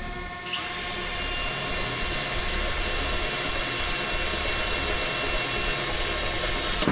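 Cordless drill boring a hole through a sheet-metal enclosure panel: the motor starts about half a second in and runs steadily with a high whine, stopping right at the end.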